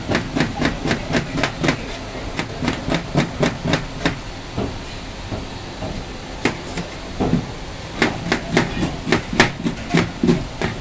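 Rapid chopping on a block, about four knocks a second, in two runs with a pause of about two seconds between them.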